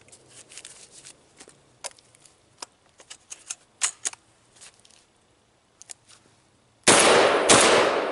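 A shotgun fired twice in quick succession near the end, the shots a little over half a second apart, the second blast trailing off in a long echo. Before the shots, scattered light clicks and rattles of the gun being handled.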